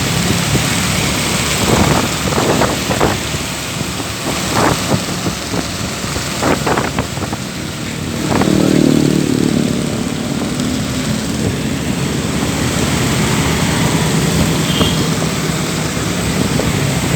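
Road traffic, with car and motorbike engines running over a steady hiss. Several short sharp knocks come between about two and eight seconds in, and an engine swells briefly soon after.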